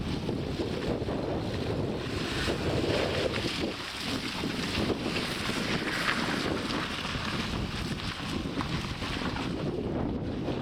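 Renault Clio hatchback driving through shallow flood water, its tyres swishing and spraying across the wet concrete, with wind rumbling on the microphone throughout. The water hiss is strongest in the middle, as the car pulls away.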